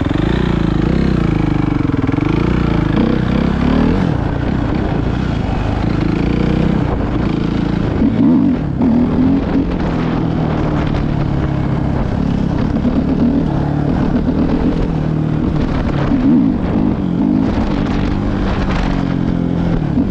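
Suzuki 450 dirt bike's single-cylinder four-stroke engine running under way, its pitch rising and falling with the throttle, with louder revs about eight and again about sixteen seconds in.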